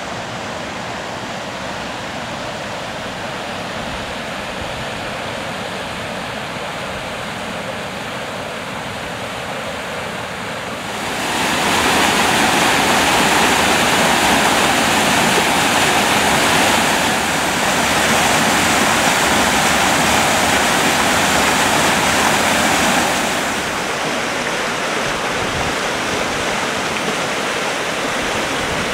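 River water rushing over rocky rapids, a steady roar of white water. It grows louder about a third of the way through and eases back somewhat about two-thirds of the way through.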